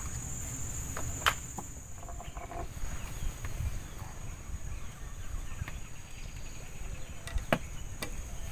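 Insects shrilling steadily in a thin, high band over a low rumble, with a few sharp clicks, the loudest a little over a second in and a few more near the end.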